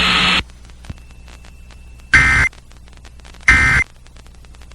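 Emergency Alert System end-of-message data bursts: two short buzzing bursts of two-tone digital code, about 1.3 seconds apart, marking the close of the alert. Before them a loud hiss cuts off about half a second in.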